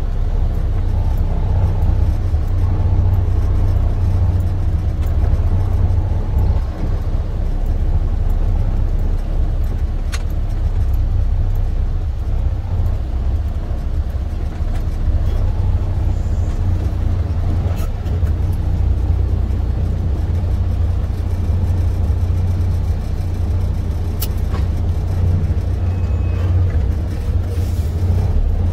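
Semi truck's MaxxForce 13 diesel engine running as a steady low drone while the truck rolls slowly, heard from inside the cab.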